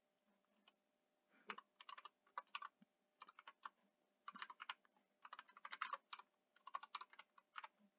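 Faint typing on a computer keyboard: quick, irregular clusters of key clicks, starting about one and a half seconds in.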